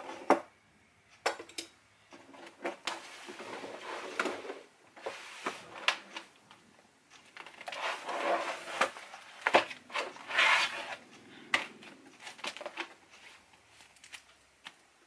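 Things being handled and set down on a wooden desk: a series of sharp clicks and knocks from a folding metal laptop stand and pens being put in place, with rustling in between.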